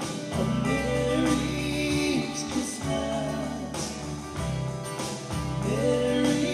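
Live worship band playing a song: a man sings over strummed acoustic guitar, electric bass and an electronic drum kit, with a steady beat.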